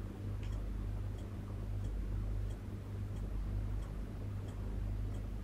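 Quiet room tone: a steady low hum with faint, evenly spaced ticks, about three every two seconds.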